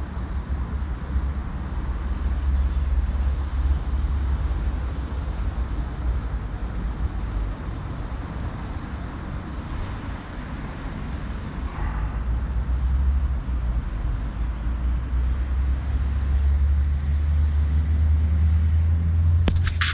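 Steady low outdoor rumble, louder in the second half, with a few short clicks near the end.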